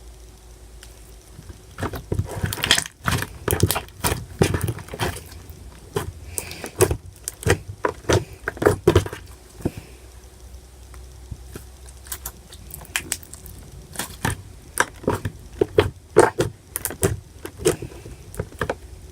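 Slime being squished and stretched by hand, making quick irregular clicks and pops that start about two seconds in.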